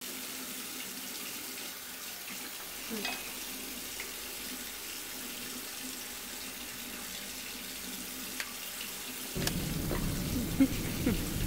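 Water running from a bathroom sink tap, a steady hiss. About nine seconds in, a low rumble of car cabin noise from driving joins it.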